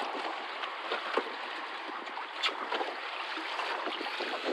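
Steady wash of water around a small boat at anchor, with a few light knocks.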